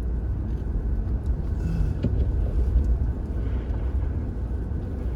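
Car driving on snow: a steady low engine and road rumble.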